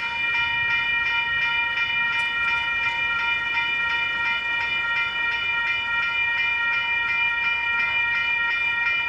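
Railroad crossing warning bell starting suddenly and ringing in quick, even strikes as the crossing activates and the gate arms come down.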